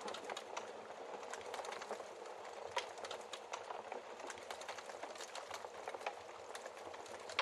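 Wood fire crackling in a fireplace: a steady run of small crackles with occasional sharper pops, the loudest nearly three seconds in.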